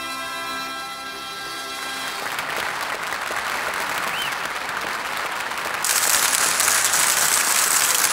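Studio audience applauding after a song ends: the last held note fades out about two seconds in, and the clapping grows louder about six seconds in. Heard through an old radio transcription-disc recording.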